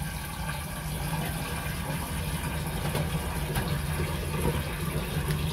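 Water running steadily from a kitchen tap into a sink.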